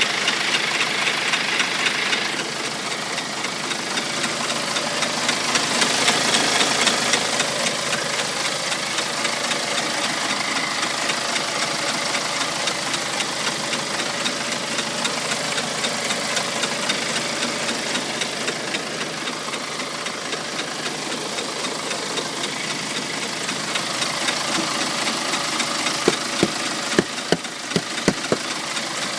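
BMW X1 20d's N47 four-cylinder turbodiesel running with a fast, regular ticking. Several sharper knocks come near the end.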